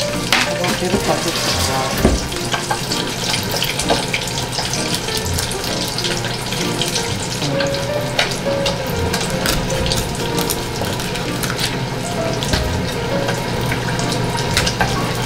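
Kitchen knife filleting a red sea bream on a plastic cutting board: wet crackling and scraping with many small clicks as the blade works through the flesh and along the bones.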